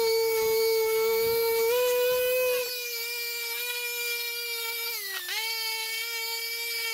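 Pneumatic random-orbital sander running at speed with a steady high whine as it sands the plastic housing of a depth-finder transducer. Its pitch dips briefly about five seconds in, then recovers.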